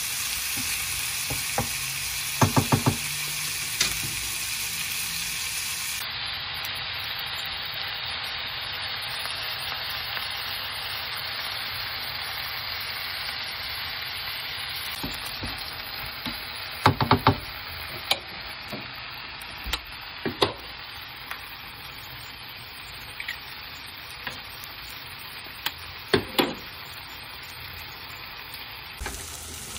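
Sliced tomatoes and onions sizzling steadily in a frying pan, with brief clusters of sharp taps and clicks now and then from the wooden spatula against the pan and, near the end, eggs being cracked on it.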